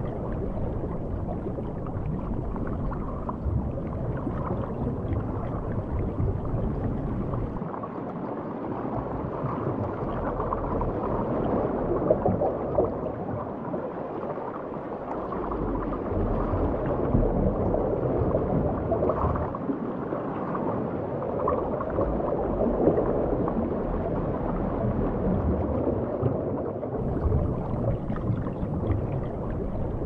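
Underwater ambience on a shallow coral reef: a steady low rushing and gurgling of moving water that swells and eases every few seconds.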